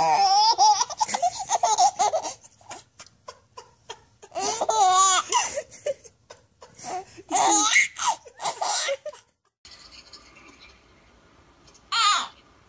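A baby laughing in three long bursts of high-pitched giggling, with short pauses between. Near the end the laughter stops, and there is one brief high vocal squeal.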